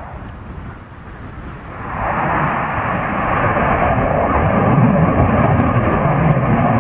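Aircraft engine noise from a plane flying past. It dips briefly, then grows much louder from about two seconds in and stays loud.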